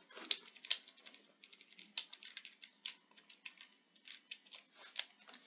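Quick, irregular clicks and taps of a computer mouse and keyboard, several a second, faint.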